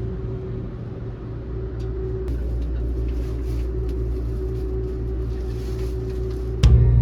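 Steady low rumble of a moving vehicle, with a constant hum. Music with drums comes in suddenly near the end.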